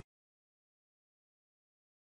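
Digital silence: the sound track is cut off completely, with no room tone at all.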